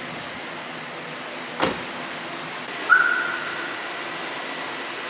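A car door on a Honda hatchback shut with a sharp thump about three seconds in, followed by a short high beep, after a lighter click a little earlier, over a steady background hum.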